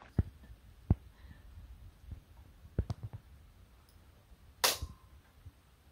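Cooked crab shells cracking and crab picks clicking against shell and plate as the meat is picked out by hand: scattered sharp clicks and knocks, a quick cluster around three seconds in, and a brief crunchy crackle just before five seconds.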